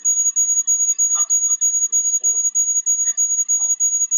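A loud, high-pitched electronic tone, steady in pitch but pulsing rapidly in level, with faint muffled voices beneath it.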